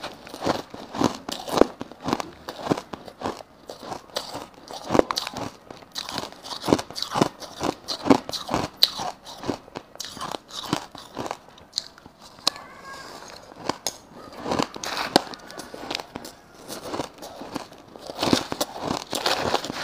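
Crushed ice crunched between the teeth: a dense, irregular run of sharp crunching bites, easing off for a moment about two-thirds of the way through.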